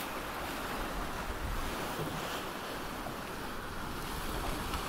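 Sea water rushing and splashing steadily along a sailing trimaran's hull and float in a rough sea, with wind on the microphone.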